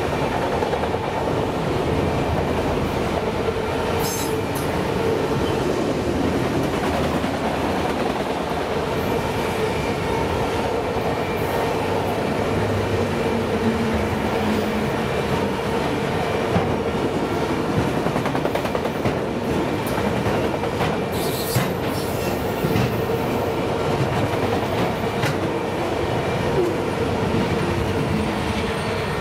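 Empty autorack freight cars rolling past at speed: a steady rumble and clatter of steel wheels on the rails, with a steady tone running under it. A few sharper clanks stand out, about four seconds in and again past the twenty-second mark.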